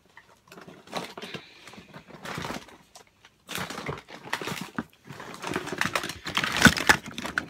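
Rummaging through a drawer of cables and electronics: irregular clattering, clicking and rustling of wires and small plastic items, louder in the second half with the loudest clatter about six to seven seconds in.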